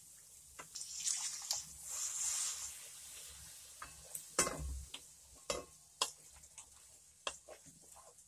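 Water poured onto hot fried masala paste in a pan, sizzling for a second or two, then a wooden spatula stirring the thinned masala with several knocks and scrapes against the pan.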